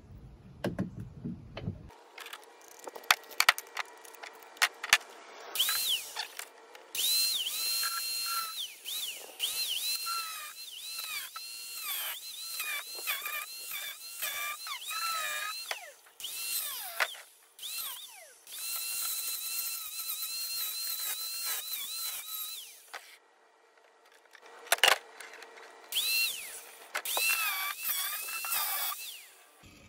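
A small angle grinder with a cutting disc running in repeated bursts, its whine sagging in pitch and recovering as the disc bites into the work and eases off. A few sharp clicks come before the first burst.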